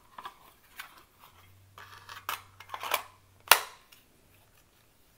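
A Glock 48 being handled against a polymer holster. Several light plastic clicks and knocks come first, then one sharp click about three and a half seconds in, as the pistol seats in the injection-molded Bravo Concealment Torsion 3.0 holster.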